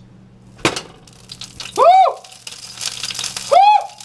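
Kitchen tap water running while a green onion is rinsed under it, with two short, loud, high-pitched whoops that each rise and fall in pitch, about a second and a half apart.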